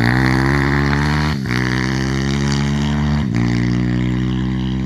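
Pit bike's Zongshen 160cc single-cylinder four-stroke engine running hard under a rider, with two brief breaks in its note, about a second and a half in and again past three seconds.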